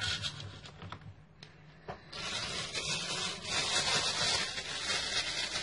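Soft rubbing and light clicks of leftover modelling-dough scraps being gathered on a plastic work board. About two seconds in, a steady hissing background noise starts and carries on. The home recording does not show its source.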